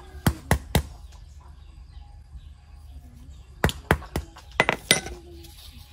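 Sharp knocks of a hard object being struck: three quick strikes, then a burst of about six more some three seconds later.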